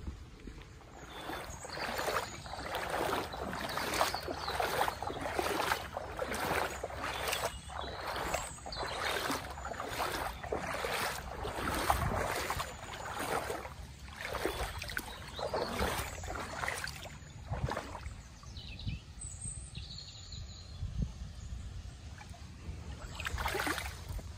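Footsteps wading through shallow floodwater on a road, each step a splash, at a steady walking pace; the steps stop about three-quarters of the way through, with one more splash near the end.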